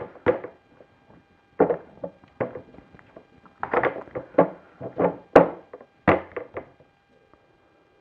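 Irregular hard knocks and taps as a landing gear is handled and set into place on a model airplane's fuselage, about a dozen thunks, the loudest about five seconds in.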